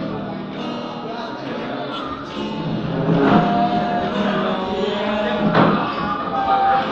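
Background music with guitar and a singing voice.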